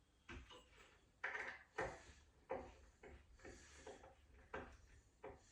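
Light clicks and knocks from fitting a cabinet handle, its small screws being tightened against the cabinet door.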